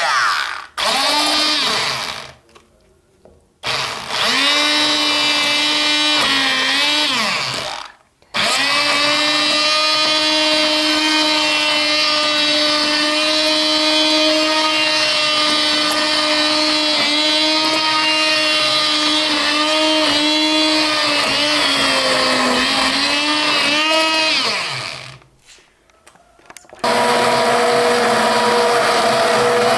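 Hand-held immersion blender motor running in a pot of cooked tomatoes and basil, puréeing them into soup. Its pitch sags and wobbles as the blade meets the chunks. It is switched off and on again three times, briefly, and runs at a higher pitch after the last restart near the end.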